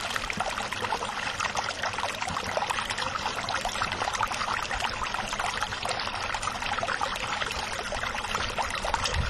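Water trickling and lapping: a steady stream of small splashes and gurgles with no let-up.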